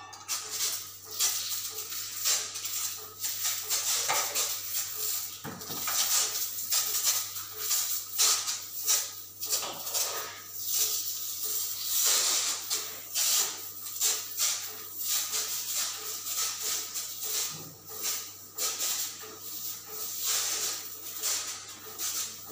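Hand-held insecticide sprayer hissing in short repeated bursts, about one to two a second, during a cockroach spray treatment, over a faint steady hum.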